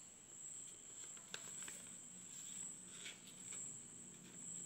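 Sheet of paper being handled and folded by hand: a few faint rustles and crease clicks, over a steady high-pitched tone in the background.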